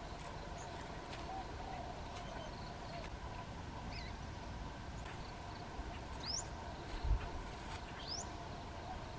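A bird calling: a short, quickly rising whistled note, given twice about two seconds apart in the second half, over a faint steady outdoor background. A brief low thump comes about seven seconds in.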